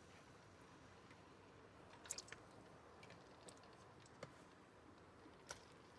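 Near silence with a few faint clicks and crackles, a small cluster about two seconds in and single ones later, as raw chicken pieces are laid into warm oil in a karahi.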